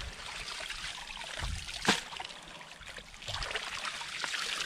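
Water trickling and sloshing as people wade and work a fishing net through shallow water, with one sharp smack about two seconds in.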